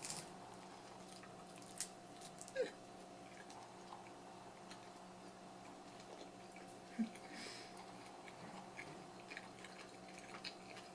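A person quietly chewing a bitten-off piece of breaded mock chicken nugget: soft mouth sounds with a few faint clicks.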